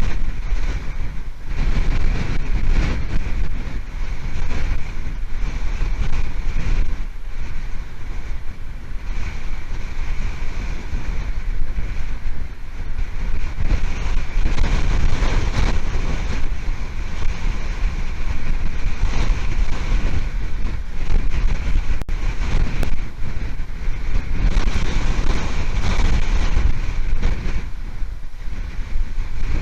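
Hurricane-force wind buffeting the nest cam's microphone: a loud, rushing roar that surges and eases in gusts.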